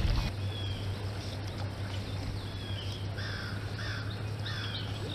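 Birds calling outdoors: three harsh calls in a row near the middle, with short high chirps scattered around them, over a steady low hum.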